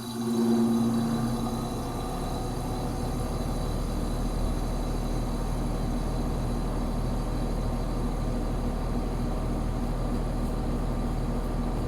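Carrier 5-ton outdoor air-conditioning condenser starting up. A humming tone in the first couple of seconds gives way to the compressor and fan running with a steady low drone.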